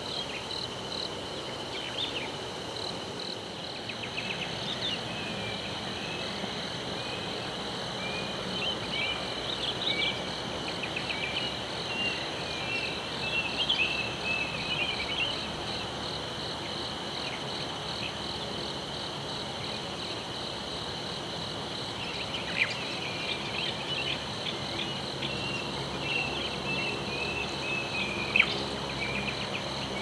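Dawn forest ambience: a steady chorus of insects trilling in rapid pulses, with birds chirping and twittering over it, busiest around ten seconds in and again from about two-thirds of the way through. A soft background hiss runs underneath.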